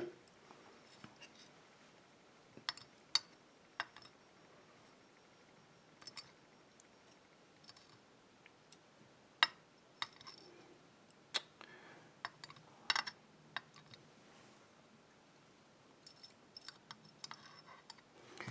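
Tweezers setting tiny lock springs and pins down on a metal pinning tray: small, sharp metallic clicks and clinks at irregular intervals, a few close together near the end.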